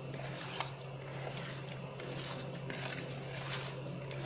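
Hands squeezing and kneading raw spiced beef mince in a plastic bowl: soft, wet squishes about once a second, over a steady low hum.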